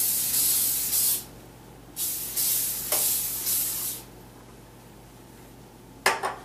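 Aerosol can of cooking spray hissing onto a cookie sheet in two bursts, the first about a second long and the second about two seconds long with short pulses in it. A brief sharp sound comes near the end.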